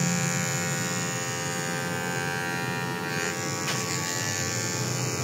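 Corded electric hair clippers running steadily as they trim a cat's fur.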